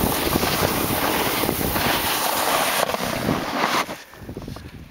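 Wind buffeting the camera microphone and a snowboard sliding and scraping over snow during a run downhill. The noise is loud and steady, then drops off sharply near the end as the rider stops.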